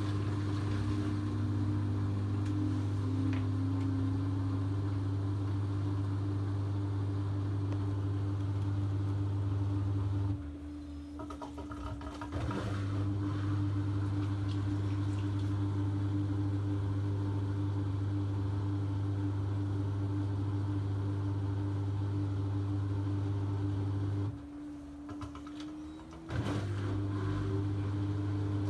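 A steady machine hum that cuts out twice for about two seconds and starts again suddenly each time.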